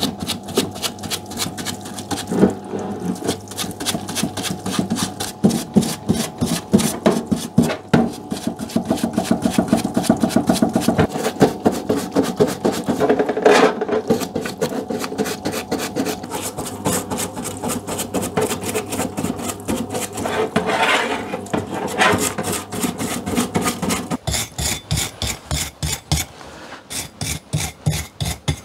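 Brush scrubbing the threaded steel main screw of a Record No. 25 bench vise in a parts washer, in quick back-and-forth strokes over a steady hum from the washer's pump feeding solvent through the brush. About four seconds before the end the hum stops, and a wire brush scrubs the screw dry in slower, separate strokes.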